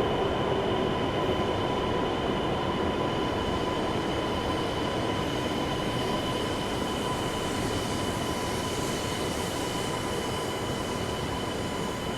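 Train moving along a station platform: a steady rolling rumble with a faint steady whine over it, slowly fading.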